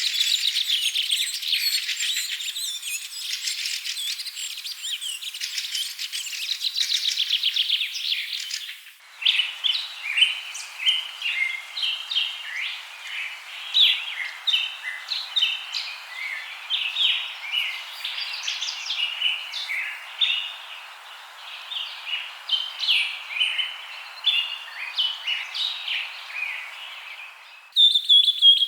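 Songbirds chirping and calling, in edited recordings. For the first nine seconds there is a dense, fast run of chirps. It then cuts to another recording of scattered short chirps and calls over a light hiss, and changes again just before the end.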